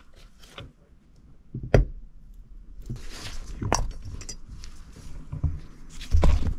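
Scattered sharp clicks and small knocks of a hand tool against a Honda Beat's aluminium cylinder head as valve stem seals are pressed onto the valve guides, the loudest click about a second and a half in and a dull thump near the end.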